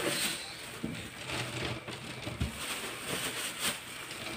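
Plastic bag crinkling and rustling as loose wood shavings are shaken out of it and land in a plywood box.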